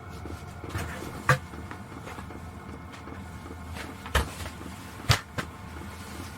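Four sharp knocks or clunks, the first about a second in and three more close together near the end, over a steady low rumble.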